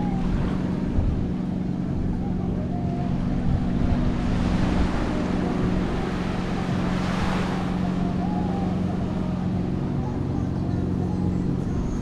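A steady low motor hum, with a wash of noise that swells up about four seconds in and fades again near eight seconds, over faint distant voices.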